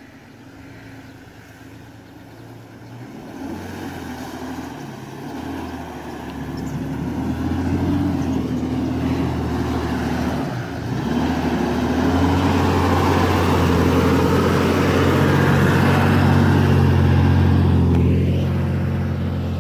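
Four-wheel-drive vehicle engine running, growing steadily louder over the first several seconds and then holding loud, with a brief dip about halfway through.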